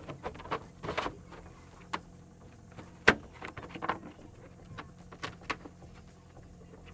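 Hard plastic wheel well guard being handled and pushed into place inside a pickup's wheel well: a string of irregular clicks, knocks and scrapes, with one sharp knock about three seconds in.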